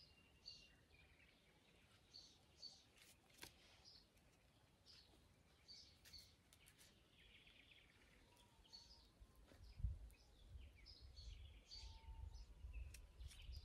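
Faint birdsong: short chirps repeated every second or so over a quiet rural background, with a low rumble coming in about ten seconds in.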